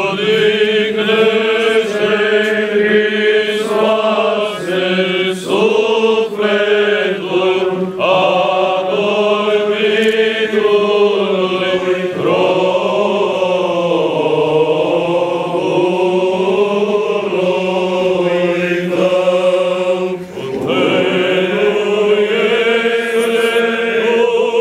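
Male choir of Orthodox clergy singing a Byzantine-style memorial chant, with a low note held steadily under a moving melody line and a brief pause for breath near the end.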